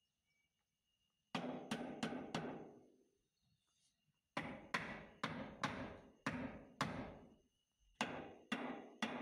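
Hammer driving nails overhead into rough-sawn bandsaw boards closing up the eaves of a log cabin: three runs of sharp blows, about four, then seven, then three, each ringing briefly.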